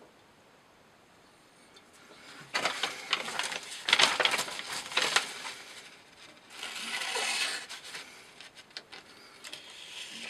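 A Hyperion Medium Mamba knife slicing through rope. There are rough rasping strokes with sharp clicks, starting about two and a half seconds in, a smoother rasp after the middle, and a few more clicks near the end.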